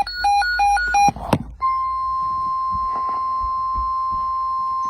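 Emergency alert broadcast tones: a run of short electronic beeps stops about a second in and a click follows. Then a single steady alert tone sounds and holds through the rest.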